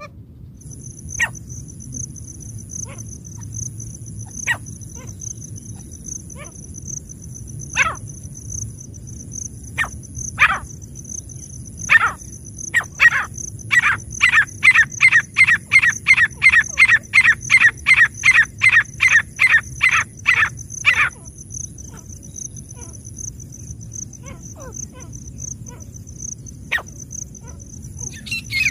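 Francolin (teetar) calling: a few scattered sharp calls, then a fast run of about two dozen sharp calls at three to four a second that stops abruptly, followed by a few fainter calls.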